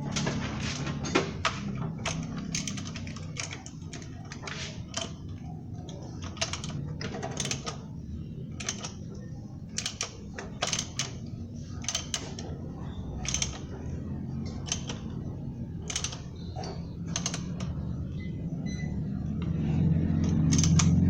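Irregular sharp metallic clicks and taps of hand tools and engine parts being handled during timing belt work, a few per second, over a low steady hum.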